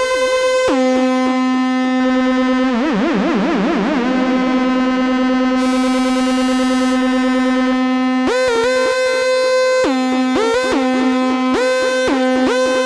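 Arturia MiniBrute analogue synthesizer played through a delay pedal. A fast run of short repeated notes, each with a swooping filter sweep, gives way to one long held low note. That note wobbles briefly and takes on a hiss. About eight seconds in, the fast swooping notes return.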